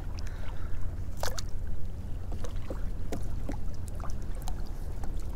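Water dripping and trickling with small splashes and knocks as an empty crab trap is handled at the side of a kayak, one sharper splash about a second in. A steady low rumble of wind on the microphone lies underneath.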